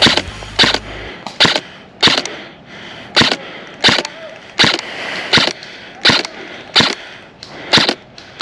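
Airsoft gun firing single shots in a steady string, about eleven sharp reports roughly 0.7 s apart.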